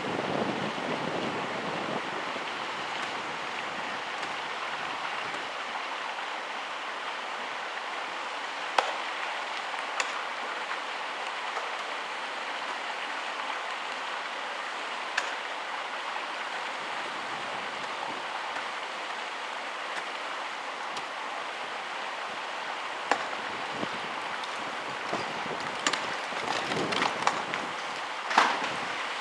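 Steady rushing outdoor noise, like wind or running water, with a few sharp clicks and knocks scattered through it, the loudest cluster near the end.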